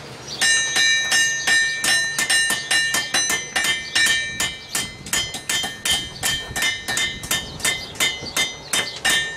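Hand hammer striking hot iron on a blacksmith's anvil in a steady run of blows, about three a second, starting about half a second in. Each blow rings with a clear, bell-like anvil tone.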